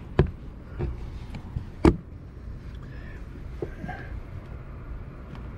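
Sharp plastic clicks and knocks from the windshield cowl panel being handled and its locking tabs pushed loose, two louder ones about a quarter second and about two seconds in, with fainter ticks between.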